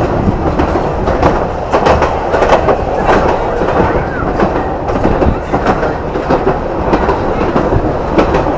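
Wooden passenger carriage of the Palma–Sóller railway running, heard from inside: a steady rumble of the wheels on the rails, with constant irregular clacking and rattling of the car.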